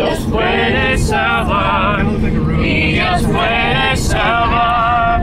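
A group of men and women singing a worship song together in Spanish. The low rumble of the moving van's engine and tyres runs underneath.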